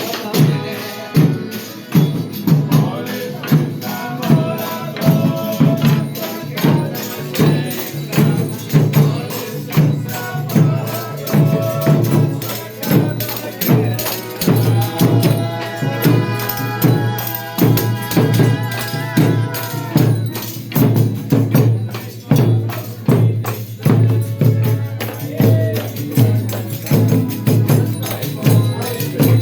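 Folia de Reis folk band playing: a deep drum keeps a steady beat about once a second under tambourine jingles, with long held melodic notes in the middle.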